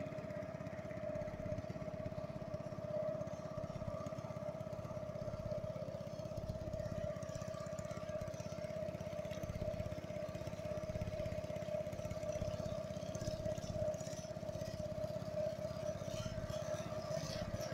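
Motor of a motorized country boat running steadily, a constant hum over a low rumble.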